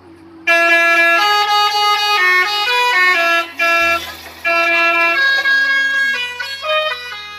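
Bus telolet horn, a multi-tone musical air horn, playing a loud tune of quick stepping notes that starts about half a second in, with a couple of short breaks in the middle.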